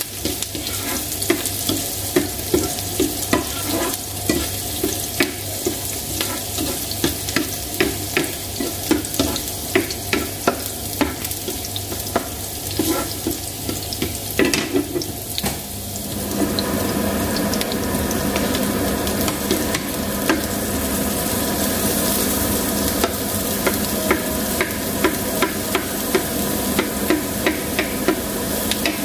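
Diced onion and garlic frying in a nonstick pan, with a spatula stirring and clicking against the pan many times. About halfway through, a steady electrical hum joins the frying.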